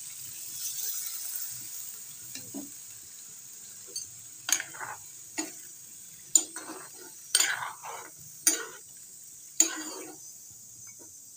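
Chicken sizzling in a black iron kadai, loudest in the first couple of seconds. From about four seconds in, a steel spatula stirs the chicken in its gravy, scraping and knocking against the pan about once a second.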